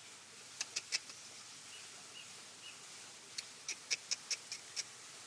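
Black-collared starling giving short, sharp clicking notes: three about half a second in, a few faint short notes in the middle, then a quick run of about eight clicks near the end.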